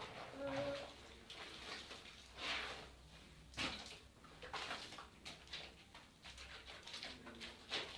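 Clothes being washed by hand in a basin: water sloshing and splashing in irregular bursts.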